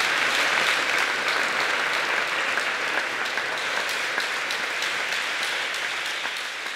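Large audience applauding steadily, dense clapping that slowly fades toward the end.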